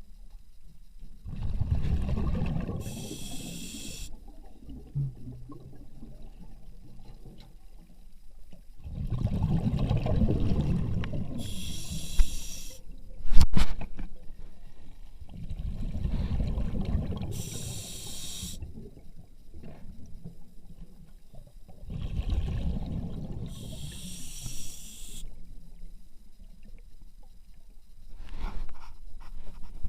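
Water pump drawing a mix of water and air through its suction intake: a rough gurgling, snorting surge roughly every seven seconds, each ending in a short hiss, with one sharp click about halfway through.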